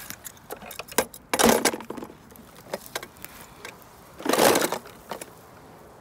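Rustling and crunching of footsteps and handling on dry leaf litter: scattered small clicks, with two loud crunching rustles, one about a second and a half in and one about four and a half seconds in.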